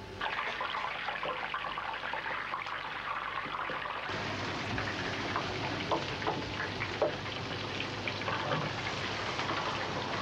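Deep-fat fryer sizzling and crackling as a breaded plaice fillet fries in a wire basket, with a few sharper clicks in the second half.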